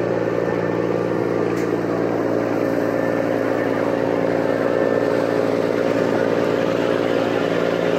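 A ferryboat's engines running steadily underway: a constant low hum of several steady tones, with an even hiss over it.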